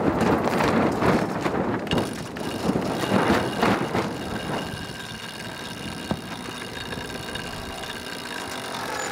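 Wind on the microphone and rushing sea noise, with a steady mechanical whine from about two seconds in: a powered sheet winch turning as it hauls in the sail's red sheet.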